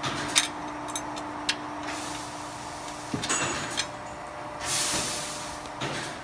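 Sharp metal clicks and taps, then scraping and a short rushing hiss, as quarter-inch bolts are fitted through the holes of a dolly's steel cross member and shaft.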